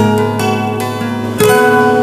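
Intro music on a plucked string instrument, its notes ringing on, with a new note struck about one and a half seconds in.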